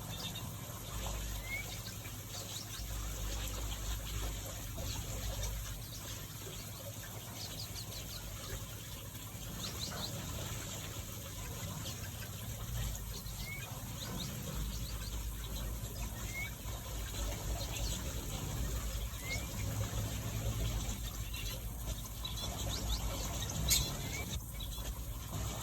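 Small finches chirping and twittering: short, high call notes every few seconds and bursts of quick chirps, over a steady background hiss and low hum.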